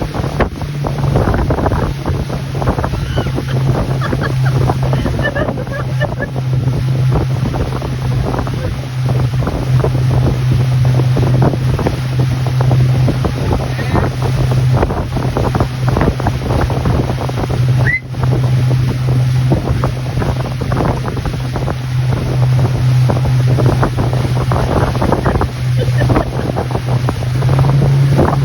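Motorboat engine running at a steady pitch while towing a tube at speed, under loud wind buffeting on the microphone and rushing water.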